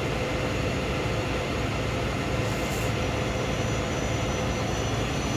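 Heavy diesel trucks idling close by: a steady low rumble, with a faint steady tone that drops out about two seconds in.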